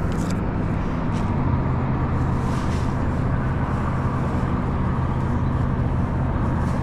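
Steady low rumble and hum of road traffic on a nearby highway overpass, with a shift in the engine hum about a second and a half in and a couple of faint clicks in the first second.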